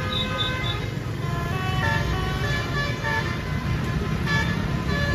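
Tour bus's Basuri telolet musical horn playing a quick melody of short stepped notes, over a steady low rumble.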